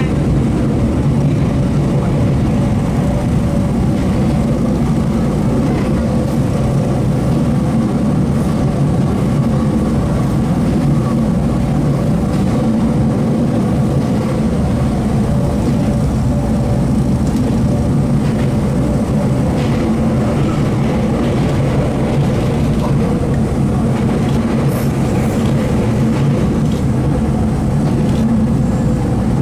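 Kobe Electric Railway Arima Line electric train running steadily, heard from on board as it climbs a steep gradient: a constant rumble of wheels on rail with a steady hum.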